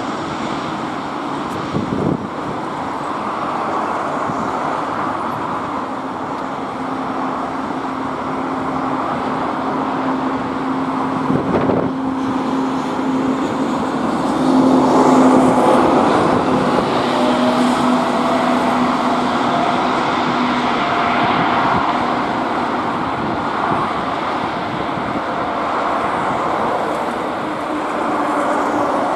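Boeing 777's twin jet engines running at taxi power as the airliner rolls past: a steady rush with a thin humming whine. The noise swells to its loudest about halfway through, and a second, higher whine rises slightly in pitch after that.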